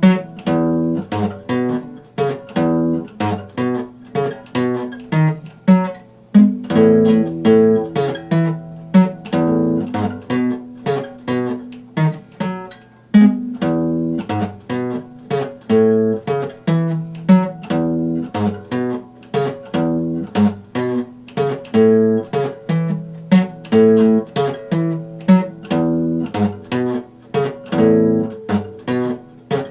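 Epiphone acoustic guitar being played: chords picked in a steady rhythm, each ringing briefly and fading before the next.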